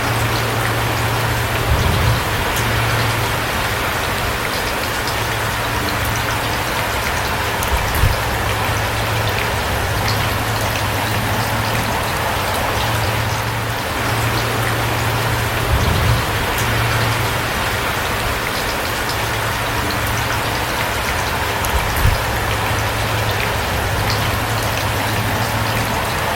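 Steady rain falling, an even hiss throughout. A low hum comes and goes beneath it, and a few soft low thumps are heard now and then.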